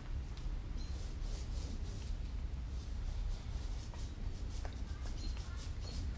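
Liquid rubber being spread on the backing of a boat carpet: short rubbing swishes of the applicator, about two or three a second, over a steady low rumble.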